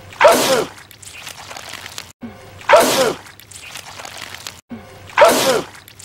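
A man sneezing wetly: the same sneeze comes three times, about two and a half seconds apart, each a short rising and falling voice sound into a loud spray.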